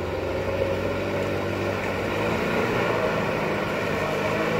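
UAZ-469 off-roader's engine running under load as it pushes through a deep flooded rut, water churning around the wheels. It gets a little louder after about two seconds.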